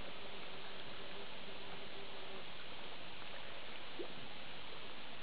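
Steady background hiss, with a faint steady hum that stops about two and a half seconds in.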